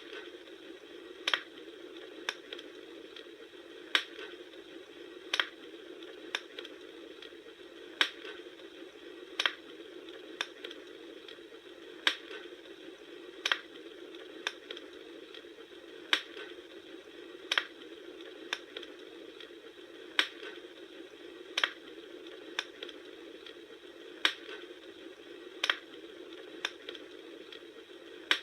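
Campfire crackling: sharp pops at an even pace, about one every second and a half, over a steady low hiss.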